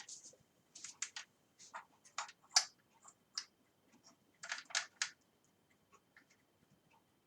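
Light metal clicks and taps from handling the bike's handlebar, stem faceplate and bolts while fitting the bar into the stem clamp. The clicks are irregular and come in clusters about a second in and again near the middle, with the sharpest click about two and a half seconds in.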